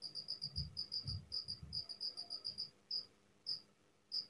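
Faint insect chirping: short, high-pitched chirps repeating about six times a second, thinning to single chirps with short pauses in the second half.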